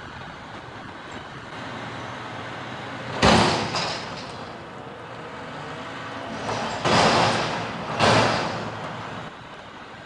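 McNeilus front-loading garbage truck lifting and tipping a steel dumpster over its cab into the hopper, its engine running at raised revs for the hydraulics. Three loud metal bangs, about three, seven and eight seconds in, come as the upturned dumpster is jarred and its lids slam.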